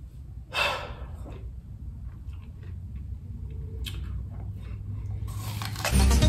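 A person's breath close to the microphone, a loud one about half a second in and a shorter one near four seconds, over low background music that grows louder near the end.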